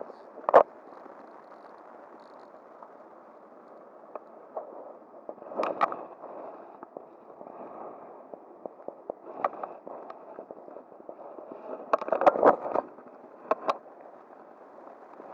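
Steady rush of flowing river water, broken by several sharp knocks and clatters, a cluster of them near the end.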